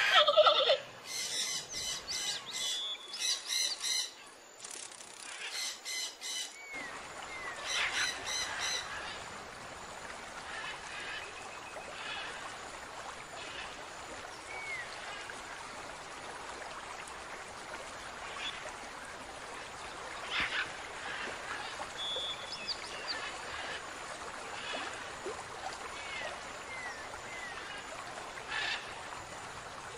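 Bird calls: a quick run of repeated calls in the first several seconds, then short chirps scattered over a steady outdoor background hiss.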